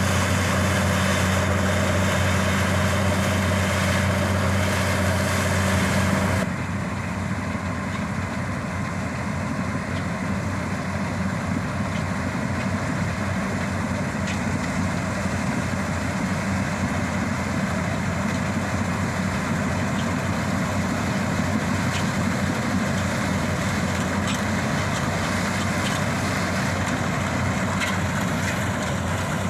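Bizon Z056 combine harvester running while harvesting grain: its SW 400 six-cylinder diesel engine and threshing machinery make a steady drone. About six seconds in the sound changes abruptly. It becomes slightly quieter and rougher, with less of the low engine hum.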